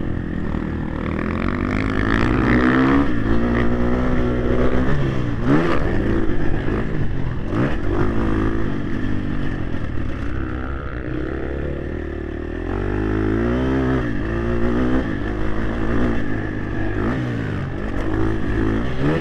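Motocross bike engine revving hard and easing off again and again with the throttle, its pitch rising and falling through the gears, heard close from a helmet-mounted microphone. It drops lower for a couple of seconds around the middle, then picks up again.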